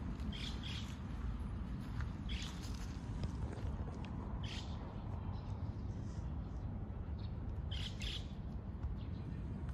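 A few short, high bird calls, paired near the start and again near the end, over a steady low rumble of outdoor background noise.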